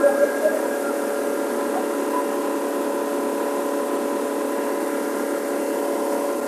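Rigid inflatable boat's outboard engine running at a steady cruising speed: a loud, even drone that holds one pitch, with a rush of wind and water over it.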